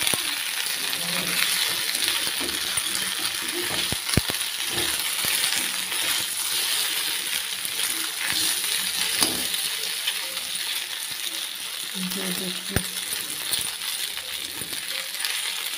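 Pieces of rice fara sizzling in hot oil in a metal kadai as they fry crisp, with a metal spatula stirring and striking the pan sharply about 4 seconds in and again near the end.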